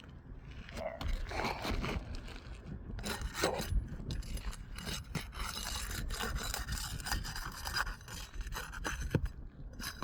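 Repeated scraping and rubbing against asphalt shingles as a shingle is worked loose for a repair, in irregular rasping strokes with a few sharper ones.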